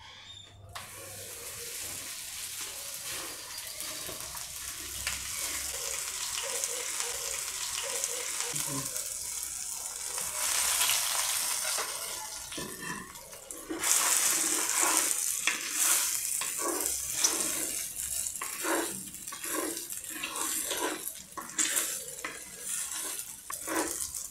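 Raw rice frying in hot oil in a clay cazuela: the sizzle starts suddenly just under a second in as the rice goes into the oil. From a little past halfway, a wooden spoon stirs the rice through the oil in repeated scraping strokes over the sizzle, louder. This is the first stage of Mexican rice, frying the grains in oil before the liquid goes in.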